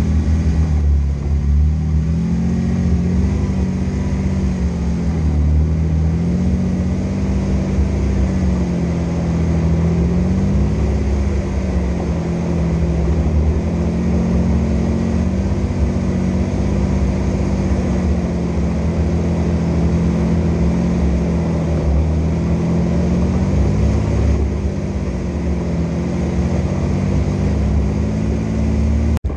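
Vehicle engine running steadily under a heavy low rumble, its pitch drifting gently up and down every few seconds as the revs change.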